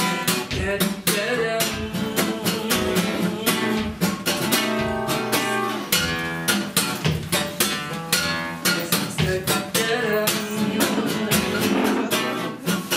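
Acoustic guitar strummed solo in a steady, brisk rhythm: an instrumental break between the sung verses of a song.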